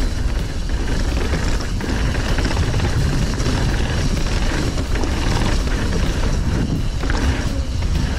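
Mountain bike rolling fast down a gravel and dirt trail: steady wind rush over the camera microphone, with tyres crunching on gravel and the bike rattling over bumps.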